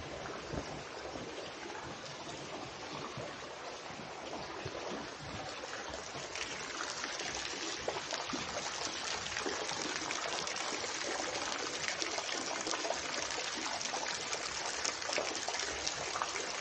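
Water trickling steadily into a pond, a continuous splashing hiss that grows a little louder after about six seconds.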